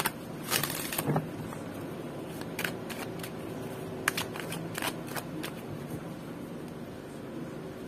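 Oracle card deck shuffled by hand: a loud burst of cards sliding and riffling about half a second in, then scattered soft taps and slides of the cards that thin out in the second half.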